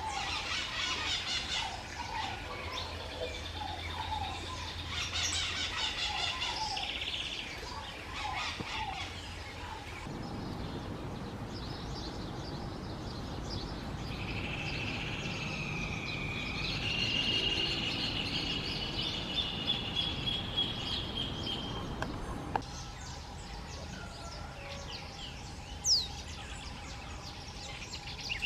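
Wild songbirds chirping and singing in a run of separate outdoor recordings: quick repeated chirps at first, then a longer wavering whistled song, then scattered calls with one sharp falling note near the end.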